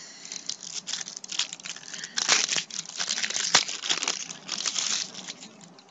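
Crinkling and tearing of a trading-card pack wrapper being torn open by hand, a run of crackly rustles lasting about five seconds with a few louder tears near the middle.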